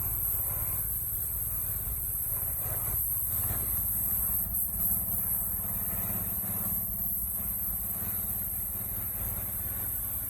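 Pressure washer running: a steady low drone under a constant high hiss.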